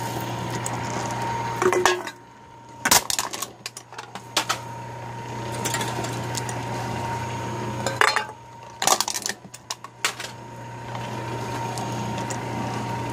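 Homemade electric can crusher running: the motor hums steadily as it drives a flywheel, connecting rod and wooden piston in a PVC cylinder. Twice, about two seconds in and about eight seconds in, a beer can is crushed and dropped, with a run of sharp metallic clanks and clinks.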